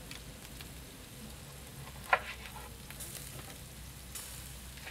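Beef matambre sizzling on an iron grill grate over wood coals, a steady frying hiss with light crackling and one sharper click about two seconds in.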